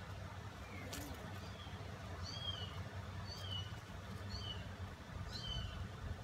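A small bird chirping: short, high two-note chirps repeated about once a second, over a low steady hum, with a single click about a second in.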